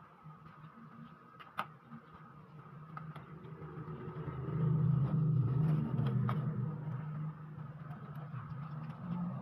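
Low engine drone of a passing motor vehicle, swelling about halfway through and easing off, then building again near the end. Over it come a couple of sharp clicks from a screwdriver working the screws of a laptop's plastic bottom case.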